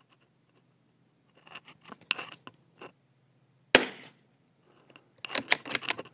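A single .22 LR rifle shot from a Savage Mark II bolt-action rimfire about four seconds in, the loudest sound, followed about a second and a half later by a quick run of sharp metallic clicks as the bolt is worked to eject the case and chamber the next round. Faint clicks of handling come before the shot.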